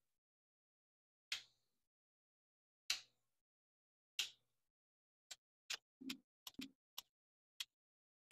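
Plastic closure links of a cable drag chain clicking as they are pried and popped open one by one with a hex key. Three single sharp clicks about a second and a half apart, then a quicker run of about eight clicks.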